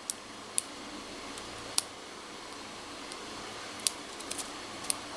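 Lock pick working the pins of a cheap pin-tumbler padlock during single-pin picking under moderate tension: scattered small metallic clicks, about seven, with most near the end.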